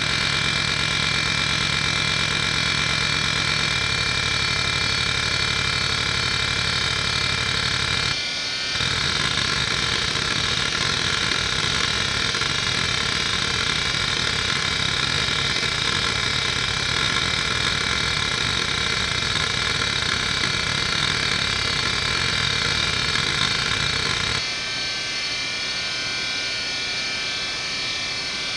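Conner CFS850A 3.5-inch hard drive seeking rapidly under the hdmotion seek-pattern test, a fast chattering rhythm over the steady whine of its 3600 RPM spindle. The seeking breaks off briefly about eight seconds in and stops about four seconds before the end, leaving only the spindle whine.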